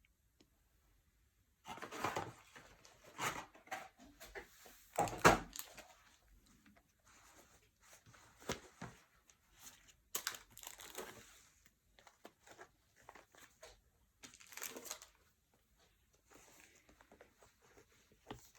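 Packaging and paper being handled: irregular rustling and crinkling, with the loudest rustle about five seconds in.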